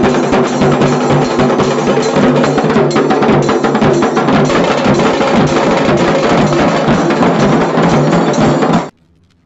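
Dhol and tasha drums played together in a fast, dense rhythm of sharp stick strokes over deep drum beats. It cuts off abruptly near the end.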